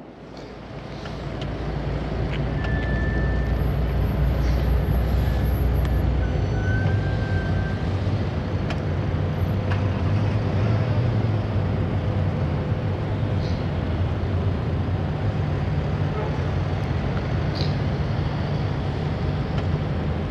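Low, steady engine rumble from a large container ship under way, rising over the first two seconds and then holding steady.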